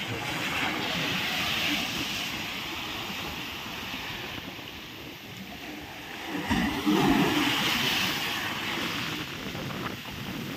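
Sea waves washing ashore with wind, a rushing noise that swells twice, about a second in and again after six and a half seconds.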